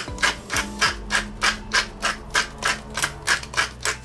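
Wooden pepper mill grinding black peppercorns, a rhythmic crunching rasp about three to four times a second as the mill is twisted back and forth.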